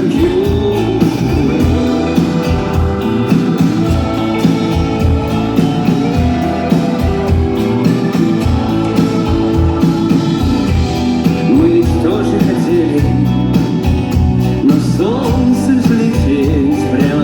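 Rock band playing live: drums keep a steady beat under guitars, with a bending, wavering melody line over them.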